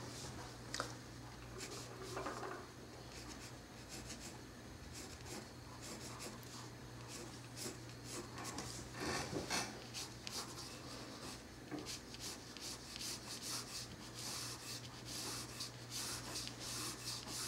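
Pencil point scratching on paper in many short, quick strokes, sketching the edges of a bird's feathers; the strokes are heaviest about halfway through and again near the end.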